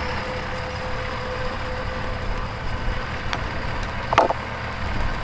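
JCB compact track loader's diesel engine running steadily while it hoists a framed wall section upright, with a short, sharp clank about four seconds in.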